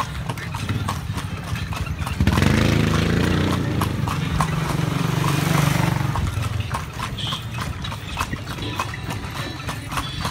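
Horse's hooves clip-clopping steadily on the paved street as it pulls a kalesa. From about two seconds in, a passing motor vehicle's low rumble rises over the hoofbeats for about four seconds, then fades.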